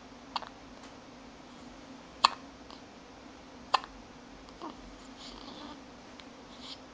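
Hiccups: three short, sharp ones about a second and a half apart, the second the loudest, then a fainter one.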